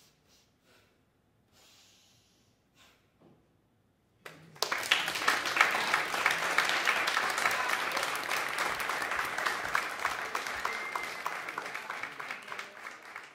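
Audience applauding: after a few faint rustles, dense clapping starts suddenly about four seconds in, then gradually thins out near the end.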